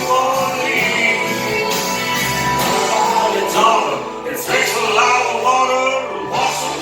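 A song playing: sustained sung vocals with harmony voices over musical accompaniment.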